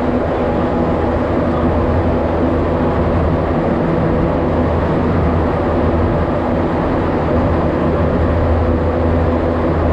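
Montreal Metro Azur train running on its rubber tyres, heard inside the car: a loud, steady rumble with a constant low hum.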